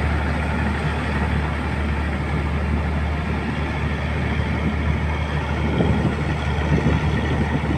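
Sidhu self-propelled combine harvester working through a rice paddy: a steady low engine drone with the even noise of its running machinery, level and unbroken.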